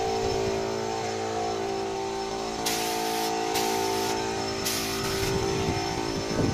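Gravity-feed spray gun hissing in three short bursts of about half a second each as varnish is sprayed, over the steady hum of the air compressor running.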